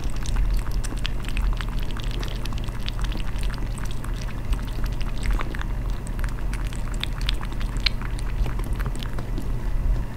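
Pet water fountain bubbling, with irregular small splashes and drips as a kitten paws at and laps the water at the spout, over a steady low hum.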